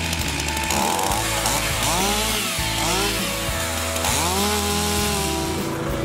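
Two-stroke Stihl chainsaw revving up and down several times while cutting the branches of a felled conifer, with background music underneath.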